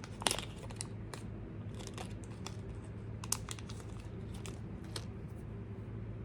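Light, irregular clicks and crinkling of small parts being handled: the stock plastic transmission gears of an SCX30 crawler and a small plastic parts bag. The clicks thin out after about five seconds, over a faint steady hum.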